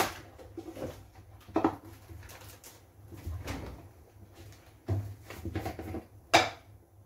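Kitchen clatter as jars, lids and utensils are handled and set down on a counter: a few separate knocks and clinks, the loudest near the end.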